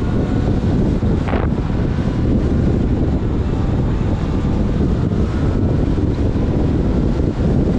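Wind buffeting the microphone of an action camera on a moving bike, a steady loud rumble with road noise underneath.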